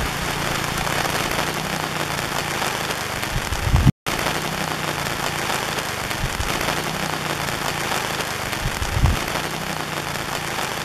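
Steady hiss of heavy rain, with a few low thumps mixed in. The sound cuts out for an instant about four seconds in, then carries on the same.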